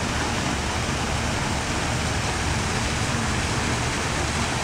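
Steady rush of falling water from an artificial rock waterfall splashing into a pool.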